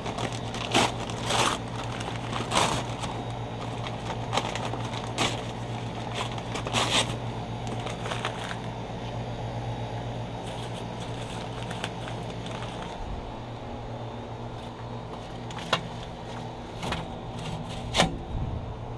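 Charcoal briquettes and their paper bag being handled: crinkling and scraping with scattered sharp clicks, over a steady low hum.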